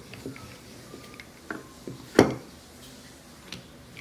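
Wooden rolling pin rolling out paratha dough on a glass board, with a few light knocks of wood on glass; the loudest knock comes about two seconds in.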